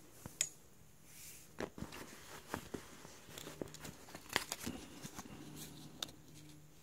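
Faint rustling of fabric with scattered light clicks and taps as hands handle a pair of jogger pants and their drawstring.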